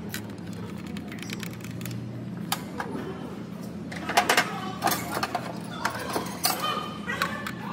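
Sharp metallic clinks and clatter of tools and engine parts being handled in a car's engine bay, scattered at first and coming thick and fast in the second half, over a steady low workshop hum.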